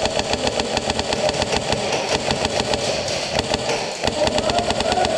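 Airsoft guns firing on full auto: a continuous, even rapid rattle of shots, about a dozen a second.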